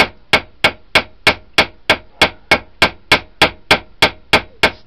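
Small ball peen hammer lightly peening a rivet in a knife handle: quick, even taps at about three a second, spreading the rivet head to set it.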